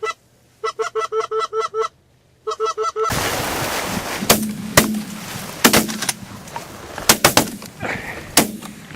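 A fast, even run of goose honks, breaking off twice. About three seconds in, a volley of shotgun shots follows: about eight shots in quick groups over four seconds.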